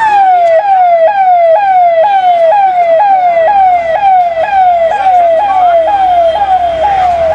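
Police vehicle siren sounding loudly in a fast repeating cycle, each cycle jumping up in pitch and sliding back down, about two a second.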